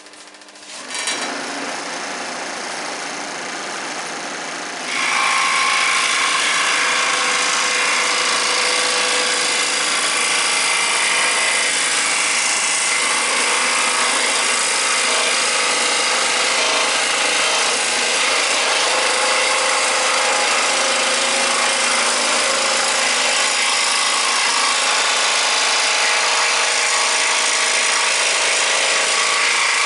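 125 W Switzer 16-inch electric scroll saw starting up about a second in, then from about five seconds in its reciprocating blade cutting through a piece of wood, a loud steady sawing noise.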